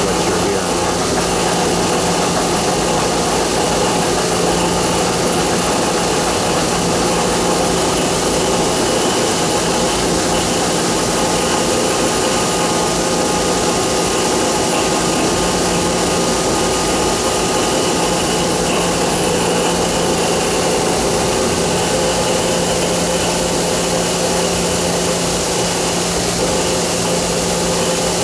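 Johnford SL650 CNC turning center running under power: a steady machine hum and whir holding several constant tones, even in level throughout.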